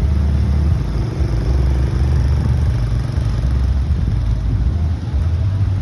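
Small ATV engine running as it is ridden, over a heavy, uneven low rumble.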